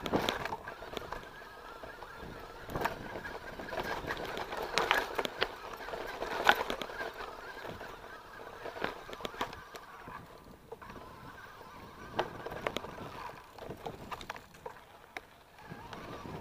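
Mountain bike rattling and knocking over a rough, bumpy trail, with a wavering, honk-like squeal from the brakes on and off through the first ten seconds or so.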